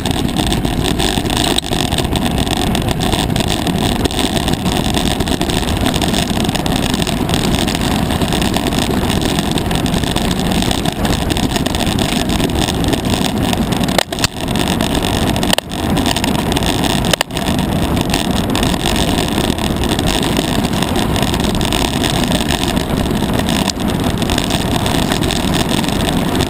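Mountain bike ride on a dirt trail heard from a bike-mounted action camera: a loud, steady rush of wind on the microphone mixed with tyre rumble and the rattle of the bike over the rough ground, broken by three brief dips a little past halfway.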